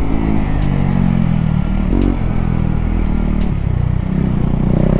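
Motorcycle engine running under way, its pitch shifting up and down a few times with the throttle, over a steady rush of wind.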